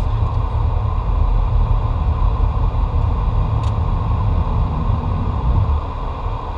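Boeing 727 flight-deck noise in low-level flight: a steady, deep rumble of airflow and the jet engines, with no break.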